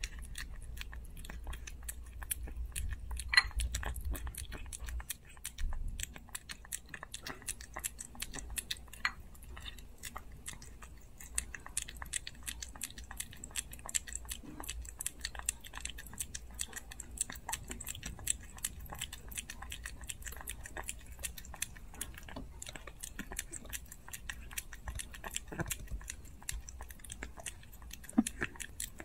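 A micro Chihuahua puppy eating a loaf of soft wet food from a dish, with rapid, continuous small wet chewing and licking clicks. A sharper louder click comes about three seconds in and another near the end.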